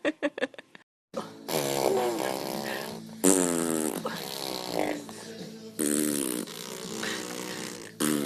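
Baby blowing raspberries: three long buzzing lip-trill noises that waver in pitch, with a short break before the first.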